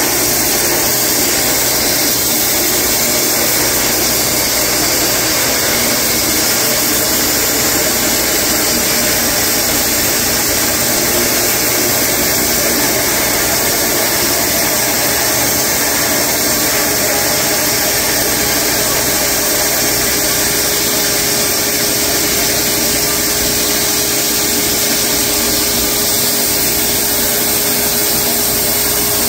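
Wood-Mizer LX250 electric band sawmill running steadily, its band blade sawing through a large horse chestnut log.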